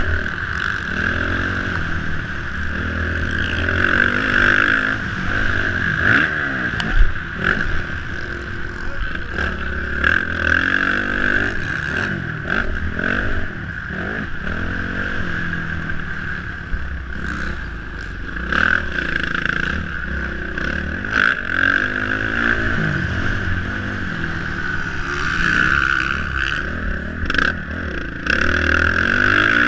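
Motocross dirt bike engine, heard from the rider's helmet camera, revving up and down over and over as the rider accelerates, shifts and backs off through the track's turns and jumps. Scattered sharp knocks from the bike running over the rough track sound through it.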